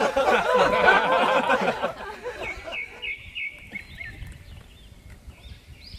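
Indistinct chatter for about two seconds, then quieter small birds chirping with short, high, repeated calls.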